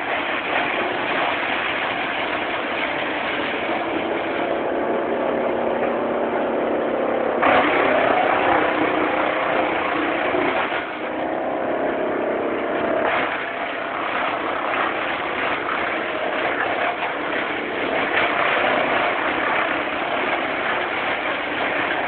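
Tow-behind wood chipper running steadily at speed, chewing up branches fed into its infeed chute. About a third of the way in the sound changes and grows a little louder for about five seconds, as the chipper takes a load.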